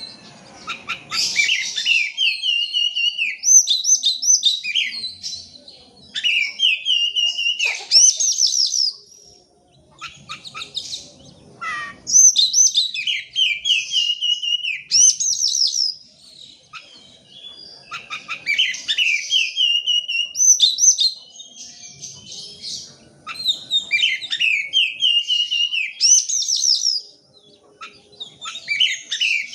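Oriental magpie-robin (kacer) singing a loud, varied song of rapid whistles and trills. It sings in phrases of a few seconds with short pauses between them.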